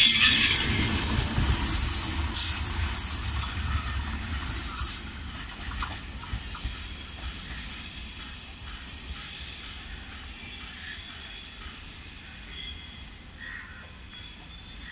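Express train's LHB coaches passing close by with sharp wheel clacks over the rails, then the train drawing away and its rumble fading steadily.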